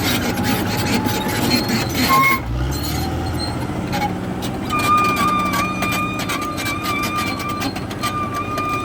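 CAT D6R XL crawler bulldozer at work: the diesel engine runs steadily while the steel track links clank and knock. From about halfway on, a steady high squeal comes from the undercarriage, breaking off briefly near the end.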